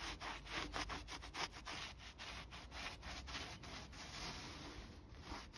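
A microfibre cloth wiped over a metal seal channel in quick back-and-forth strokes, several a second, cleaning off dust and residue of old sealing tape.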